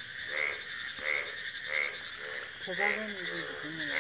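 Frogs calling in a steady chorus, a call repeating about three times every two seconds. A short voice-like sound comes in about three seconds in.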